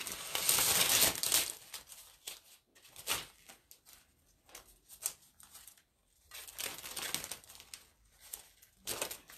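Adhesive screen-print transfer sheet being peeled apart where it has stuck to itself, crinkling and tearing in irregular rustles. The loudest stretches come in the first second or so and again around seven seconds in.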